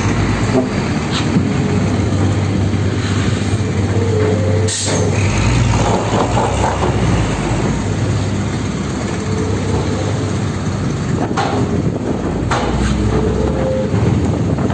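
Diesel truck engine running as a loaded truck drives slowly up a steel ferry loading ramp, with a brief hiss about five seconds in and a few metallic knocks from the wheels crossing the ramp plates.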